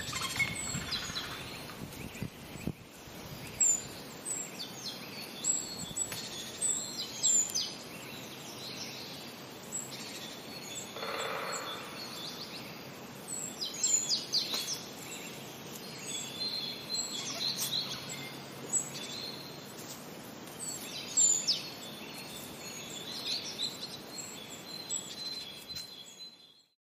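Several birds chirping and whistling in short, repeated high calls over a steady outdoor background hiss, fading out near the end.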